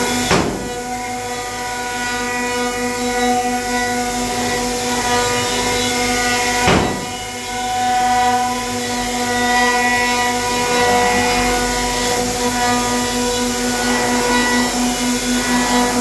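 CNC router spindle running at speed with a steady whine over a hiss of cutting, while milling a walnut gun stock. Two brief sharp sounds come about a third of a second in and again near seven seconds.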